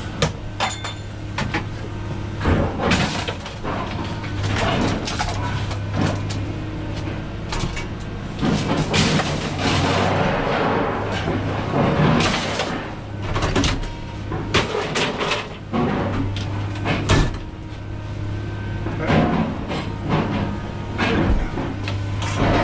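Irregular knocking and clattering, many separate knocks with brief louder clusters, over a steady low hum.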